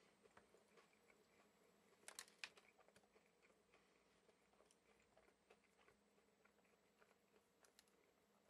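Faint chewing of a mouthful of chicken sandwich, soft irregular clicks with a brief burst of louder ones about two seconds in.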